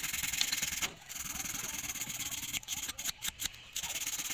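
Handheld electric power tool grinding or sanding against the work, a dense steady abrasive noise that breaks off briefly a few times as the tool lifts from the piece.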